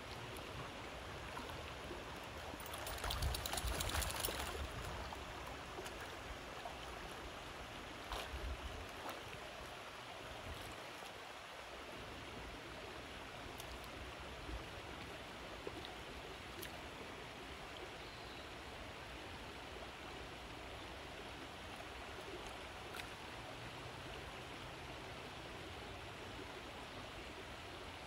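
Shallow creek water flowing steadily over stones, with a brief louder burst of rushing noise about three seconds in.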